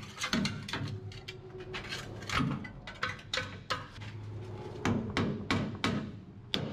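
Irregular metal clinks and knocks as a steel pry bar and gloved hands work a plate loose from a Hendrickson Haulmaax truck suspension. The knocks come quicker in the last couple of seconds.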